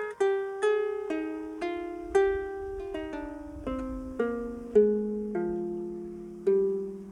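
Double diatonic harp being played: single plucked notes, about two a second, each left to ring, with the lower notes stepping down in pitch. The last note, about a second before the end, is held and rings out.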